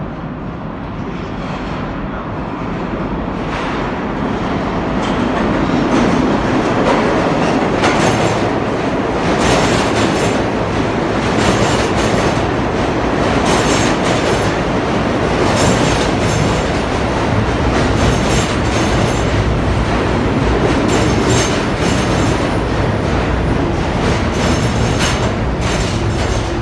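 R46 subway train approaching and entering an underground station, the rumble growing louder over the first few seconds. It then runs steadily along the platform with a rapid clatter of wheels clicking over the rail joints.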